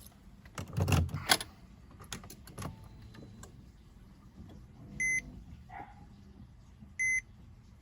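Two heavy thuds about a second in, a few light clicks, then two short electronic warning beeps about two seconds apart from a Porsche 997's dashboard as the ignition comes on. The warnings come after the battery went flat, which the owner takes as expected.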